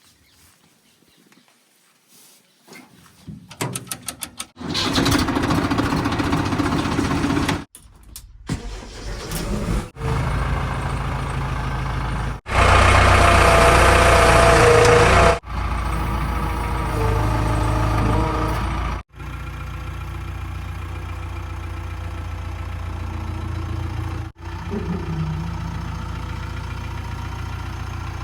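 Heavy diesel machinery engines running, a backhoe loader and the tractors and trucks it loads, in a string of short clips that break off abruptly several times. The first three seconds or so are quiet before the engine sound comes in and grows loud.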